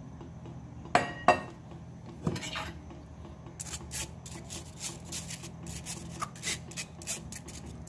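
Kitchenware sounds from straining freshly squeezed orange juice through a sieve into a bowl: two sharp clinks about a second in and another a second later, then a run of quick scraping and tapping strokes against the sieve.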